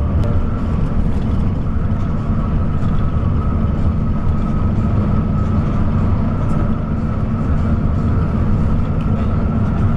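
Intercity coach running steadily at highway speed: a continuous low engine and road-tyre rumble with a faint steady whine above it.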